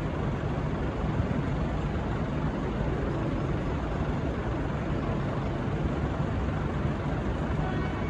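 Passenger train running, a steady low rumble with no clear change in level.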